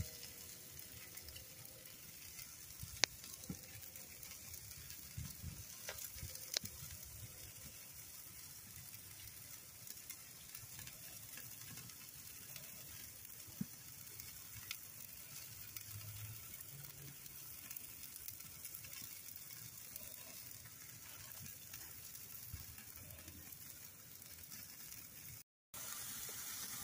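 Steaks sizzling on the grate of a charcoal kettle grill: a steady, faint hiss with a few sharp pops of fat or coals. The sound cuts out briefly near the end.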